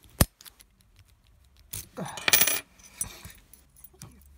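Brinks 161-50001 padlock being worked with its key: a sharp click, then about two seconds in a louder metallic clatter with ringing, and a few small clicks. The lock's action is a bit stiff.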